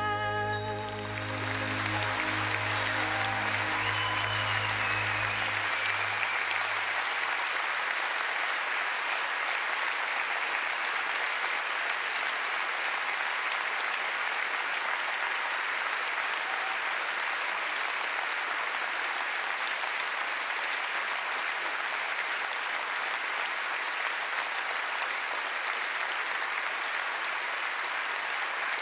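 Large audience applauding steadily. The song's final chord dies away in the first few seconds as the clapping takes over.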